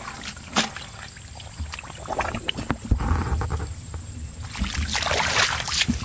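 Splashing and sloshing in shallow muddy water, with scattered knocks and rustling, at its loudest and densest in the last second and a half.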